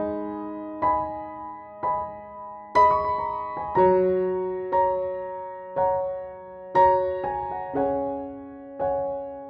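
Slow, gentle solo piano music: single notes and chords struck about once a second, each left to ring and fade.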